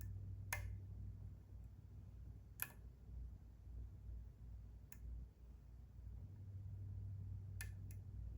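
Sharp, scattered clicks of a lock pick and tension wrench working inside a Kwikset SmartKey lock cylinder, five in all, the last two in quick succession near the end, over a low steady hum.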